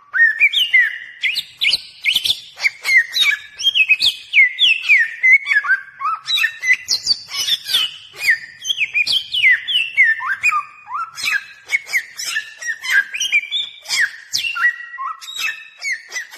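Bare-throated whistler singing a long, rapid run of varied whistled notes, many sliding up or down in pitch, with hardly a pause.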